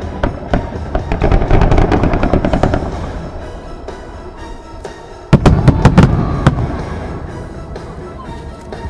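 Fireworks going off over background music: a rapid run of sharp bangs and crackles in the first few seconds, then a sudden loud cluster of booms about five seconds in that trails away.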